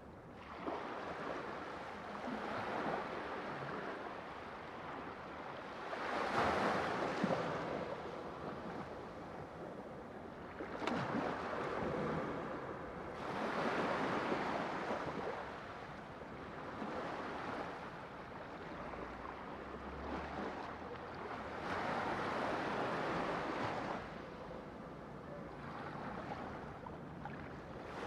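Ocean waves washing ashore: surf that swells and falls away every few seconds, with a louder wave about six seconds in.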